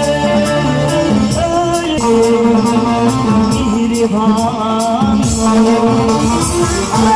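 Live amplified music: a woman singing a held, wavering melody into a microphone, accompanied by a keyboard and a plucked string instrument, with a steady percussion beat.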